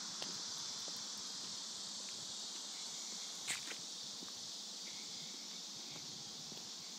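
Steady high-pitched chorus of insects. A single sharp click comes about halfway through.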